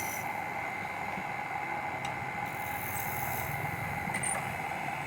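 Wood lathe running with a steady whine and a few light ticks.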